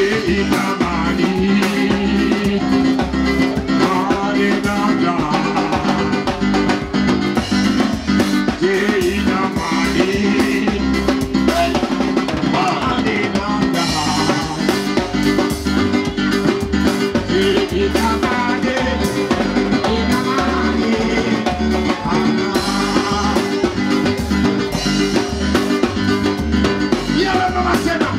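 Live band music with a drum kit and keyboard playing a steady dance beat.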